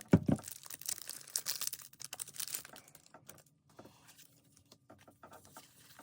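Pokemon TCG booster pack's foil wrapper being torn open and crinkled, a dense run of crackles for about three seconds, then fainter scattered crinkles.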